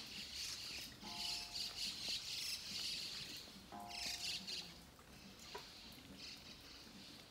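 Rain falling on the garden's foliage, a light uneven hiss. A bird calls twice, short calls about a second and about four seconds in.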